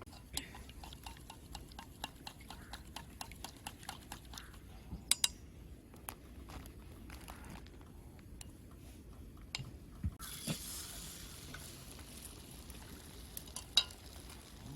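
Cooking sounds: a utensil clicking against a pot or pan in quick light taps, a few a second. About ten seconds in, a steady hiss sets in.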